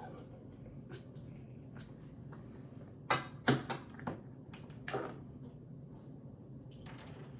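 A handheld lemon squeezer being worked and lemon halves handled, giving a few light clicks and knocks, most of them in a cluster about three to five seconds in, over a faint steady hum.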